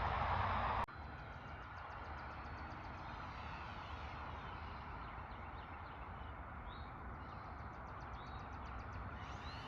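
A loud rushing noise for about the first second, cut off suddenly. Then a quieter outdoor background with small birds chirping and trilling.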